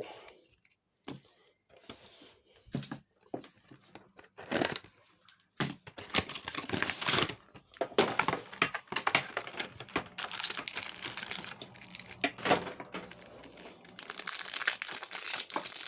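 Foil trading-card booster pack wrapper crinkling and being torn open, in irregular rustling bursts that grow denser about six seconds in.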